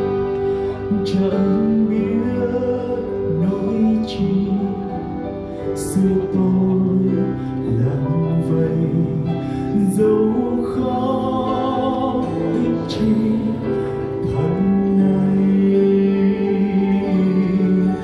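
Male vocal quartet singing a slow hymn in harmony, with long held notes.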